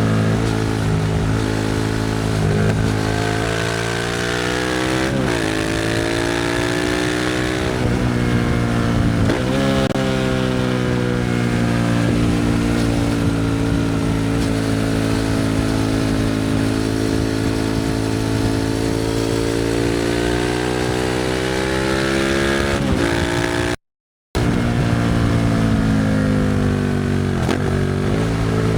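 Suzuki SV650's 645 cc V-twin through a Leo Vince exhaust, accelerating through the gears: the pitch climbs and drops back at three upshifts in the first ten seconds, then holds a steady cruise, then falls with downshifts near the end. The sound cuts out for about half a second two-thirds of the way through.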